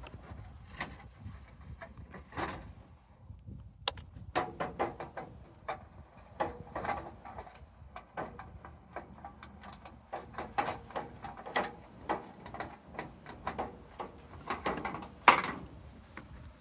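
Irregular metal clicks, knocks and clanks of a window air conditioner being taken apart, with one louder clank about fifteen seconds in.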